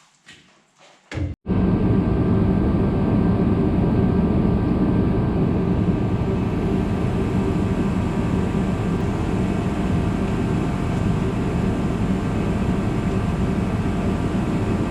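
A steady mechanical drone from a running machine, with several held tones, starting abruptly about a second and a half in after a few faint knocks.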